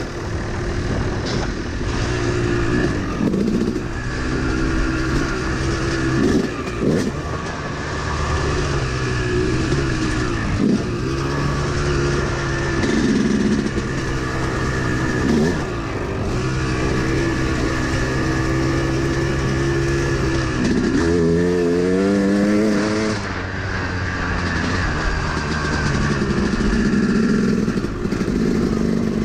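Yamaha YZ250 two-stroke single-cylinder dirt bike engine running under changing throttle while riding a dirt trail, the revs rising and falling. About 21 seconds in, it revs up sharply for a couple of seconds, then drops back.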